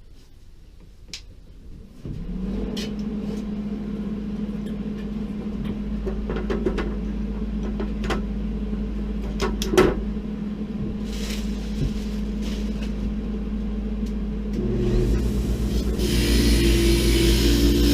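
Hobart Handler 140 MIG welder switched on about 2 s in, humming steadily, with a few clicks and knocks of handling. Near the end the welding arc starts, a louder crackling hiss over the hum.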